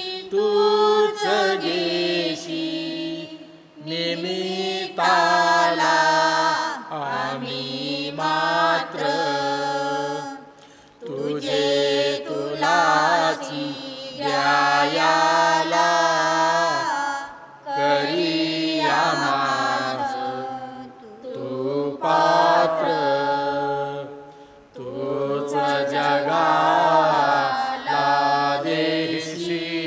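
Marathi offertory hymn sung in slow phrases of a few seconds each, with short breaths between them, over a steady held low note.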